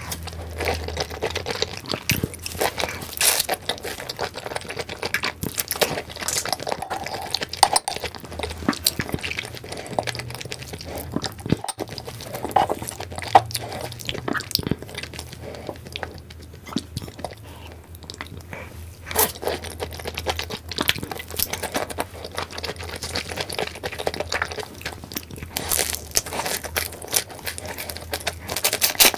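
Close-miked eating of raw red prawns and sea urchin roe: wet chewing, lip smacks and small crunches, one quick click after another.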